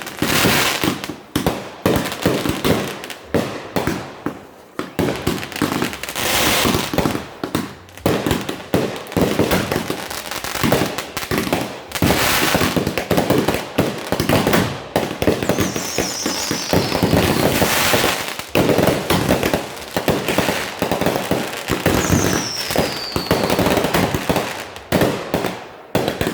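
Fireworks and firecrackers going off nonstop in a dense run of bangs and crackling, with two high falling whistles in the second half.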